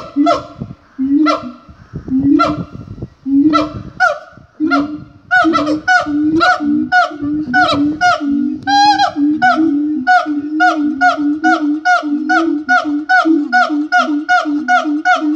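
Siamangs calling in a group song: a series of loud, honking hoots over booming throat-sac notes. The calls start spaced and quicken into a steady run of about three a second, with one higher, wavering call just past halfway.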